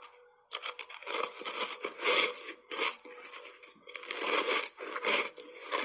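Ice coated in matcha green tea powder being bitten and chewed, a run of irregular crunches.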